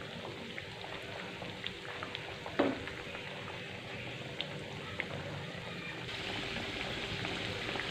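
Breadcrumbed tempeh steaks frying in hot oil in a pan: a steady sizzle with scattered small pops, growing a little louder near the end. A single knock about two and a half seconds in.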